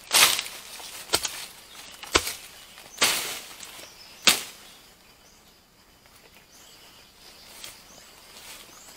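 Machete slashing through undergrowth and dry bamboo leaves: about five sharp cuts in the first four and a half seconds, one a longer swishing stroke, then the clearing stops and it goes quieter.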